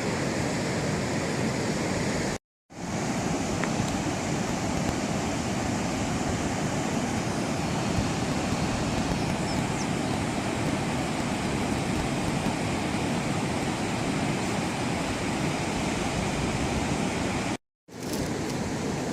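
Ocean surf washing steadily, twice cut off abruptly for a moment.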